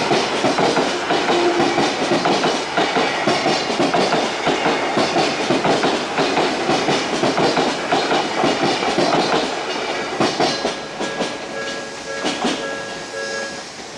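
Odakyu 1000 series ten-car electric commuter train passing at speed, its wheels clattering in a steady rhythm over the rail joints. The noise fades over the last few seconds as the train moves away, and faint steady tones come through near the end.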